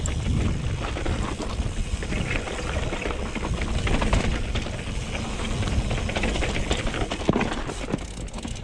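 Mountain bike riding downhill over rough dirt and rock: a steady rush of wind across a helmet-mounted camera's microphone, with tyre noise and many small knocks and rattles from the bike.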